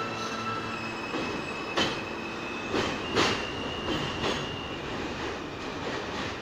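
R160A New York City Subway train pulling out and receding down the track. Its wheels give a few sharp clacks over the rail joints, about one a second, between roughly two and four and a half seconds in, over a steady running rumble with a high, steady squeal.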